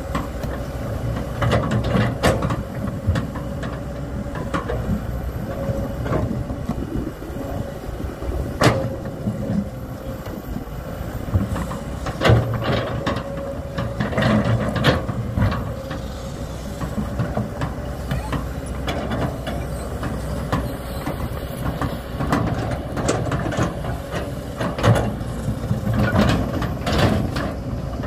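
Kobelco SK200 hydraulic excavator's diesel engine running under load with a steady whine, and irregular sharp knocks and clanks as its bucket works among loose rocks.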